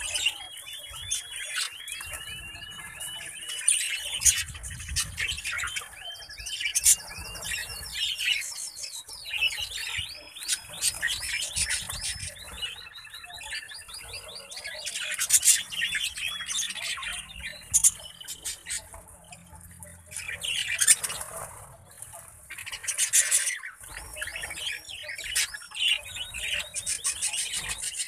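A flock of budgerigars chattering and warbling, many overlapping calls with repeated quick curved notes and frequent sharp, loud calls standing out.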